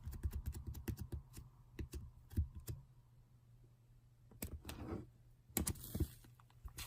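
Faint, irregular typing clicks on a keyboard, with a break of about a second and a half in the middle before the tapping resumes.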